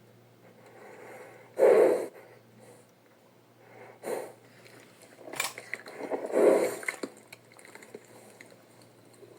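Sound effects for an imaginary bull-elephant creature: four short, breathy, snort-like calls, the first and last the loudest and the last the longest.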